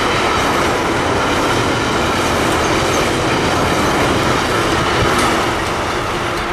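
Intermodal freight train of wagons carrying semi-trailers rolling past at close range, a steady rumble and clatter of wheels on the rails.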